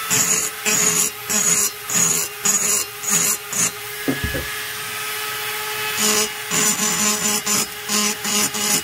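Small rotary grinder running steadily while its burr cuts the aluminium transfer ports of an Echo CS-670 chainsaw cylinder in short scraping strokes, about two a second. The strokes pause for about two seconds near the middle while the motor keeps running.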